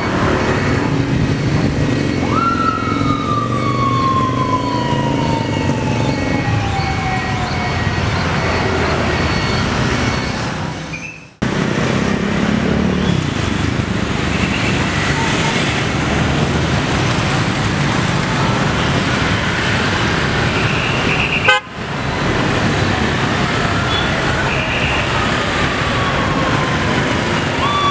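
Busy city street traffic of motorbikes, cars and vans, with motorcade escort sirens. A few seconds in, a siren rises sharply and then winds slowly down over several seconds, and sirens start up again near the end.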